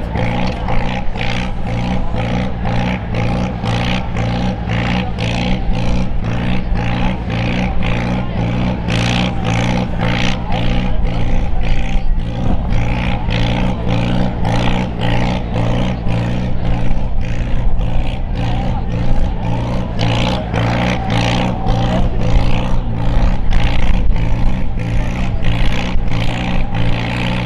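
Vintage Farmall farm tractor engine running at a steady idle, with a regular pulsing beat about twice a second.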